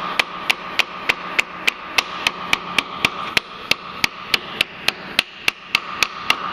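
Ball-peen hammer tapping steadily, about three light taps a second, on a paper template pressed against a steel frame plate, cutting the paper along the metal's edges.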